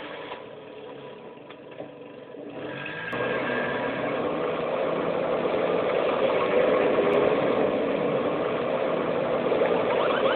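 Car engine sound effect, dubbed over a toy taxi, coming in about two and a half seconds in and running steadily, slowly getting a little louder.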